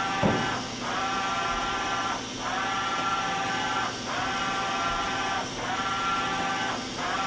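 Hardinge VMC 1500 XP3E vertical machining center's table traversing back and forth, its axis drives giving a steady whine for about a second and a half per move, with brief pauses between moves. A thump comes just after the start.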